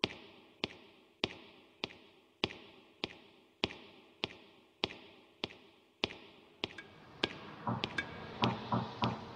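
Slow, even footsteps, a sharp step about every 0.6 seconds, each trailing off in a long echo as in an empty hallway. Other lower sounds join in near the end.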